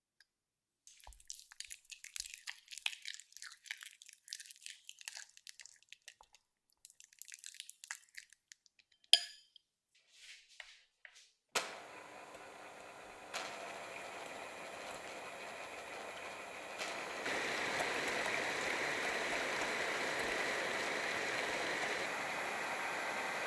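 Small, irregular crackling and squishing sounds of batter or eggs being worked in a bowl, with one sharp click about nine seconds in. About halfway through, an electric hand mixer starts whipping egg whites and runs steadily, getting louder in two steps as its speed goes up.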